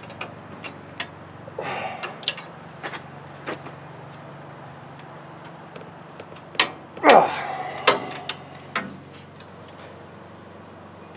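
Hand tools and a long ratchet clinking and knocking on a truck's front brake caliper bracket, in scattered single clicks. A loud falling squeak-scrape comes about seven seconds in.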